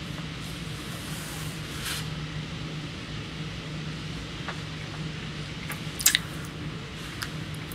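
Steady low hum and hiss of room noise, with a few faint clicks and one sharp click about six seconds in.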